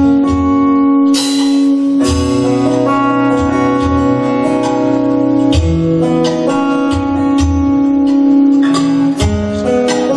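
Live band playing an instrumental passage led by an acoustic guitar, with held bass notes, keyboard and regular low drum beats.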